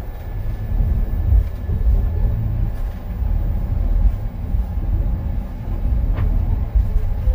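Low, steady rumble heard from inside a moving Wolmi Sea Train car, a small elevated tourist monorail, running along its track.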